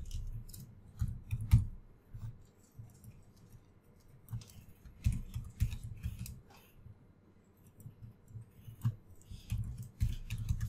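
Computer keyboard typing: irregular keystrokes in short runs with pauses between.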